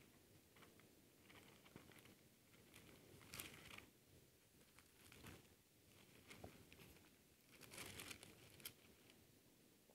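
Faint rustling of thin Bible pages being leafed through, a few short rustles about three, five and eight seconds in.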